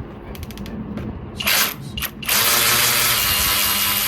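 Kobalt cordless power ratchet wrench: a few quick ratcheting clicks, then two short bursts of its motor, then a longer steady whirring run from about two seconds in.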